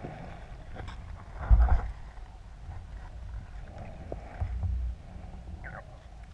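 Muffled underwater noise as a diver swims with a speargun over the seabed: a low rushing of water and movement, with two louder low surges, about a second and a half in and again at about four and a half seconds, and a few faint clicks.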